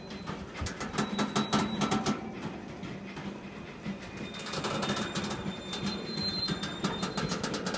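Loaded coal hopper wagons of a departing freight train rolling past, their wheels clicking over the rail joints in two clusters over a steady rumble. A thin high wheel squeal comes in the second half.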